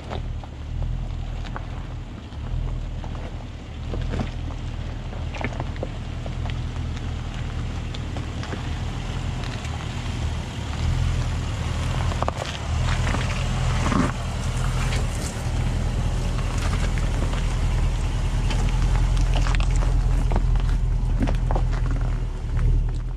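Range Rover Sport SUV crawling slowly down a rocky trail and past close by: its engine runs low and steady while the tyres crunch, click and knock over loose rocks and gravel. It grows louder in the second half as it passes.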